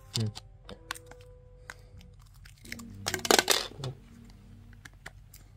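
Hard plastic clicks and small knocks from a rugged Samsung Galaxy XCover FieldPro phone and its back cover being handled, with a louder burst of scraping and clattering about three seconds in.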